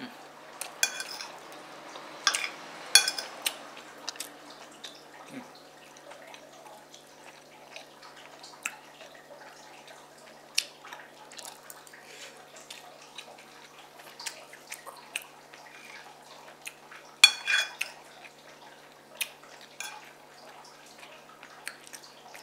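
Close-up eating sounds: chewing and wet mouth clicks as spoonfuls of fried rice are eaten. There are scattered sharp clinks of the spoon, the loudest a few seconds in and a quick cluster at about seventeen seconds.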